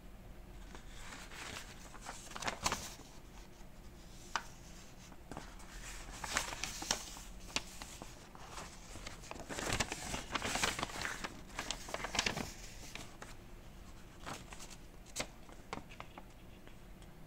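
Folded paper instruction leaflet rustling and crinkling in irregular bursts as it is handled and turned over, with scattered light clicks; the busiest rustling comes about ten to twelve seconds in.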